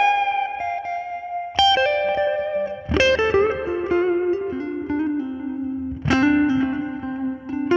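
Fernandes electric guitar played through a Hotone Ampero One amp-modelling multi-effects processor: three chords struck about a second and a half, three and six seconds in, each left to ring while single notes move over it.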